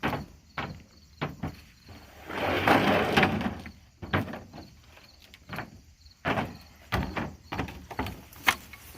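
Irregular knocks and thumps, with about a second of louder rustling roughly two and a half seconds in.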